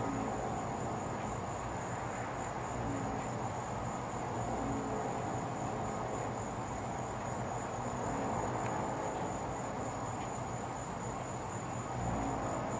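Crickets chirping in a steady high-pitched night chorus over a low, steady background rumble.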